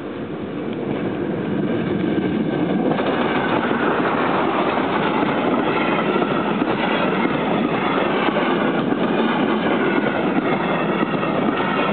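A steam train passing close by. The rumble grows over the first few seconds as the locomotive comes up and goes past. Then comes a steady, loud rumble of passenger coaches rolling by, their wheels clacking on the rails.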